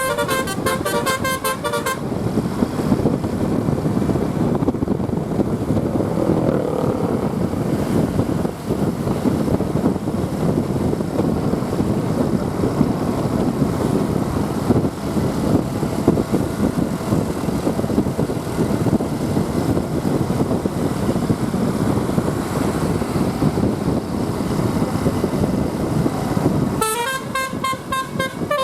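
Bus telolet horn of the Basuri type playing a quick run of stepped, tuned notes for the first couple of seconds, then a long stretch of rumbling vehicle engine and road noise. The horn melody starts again near the end.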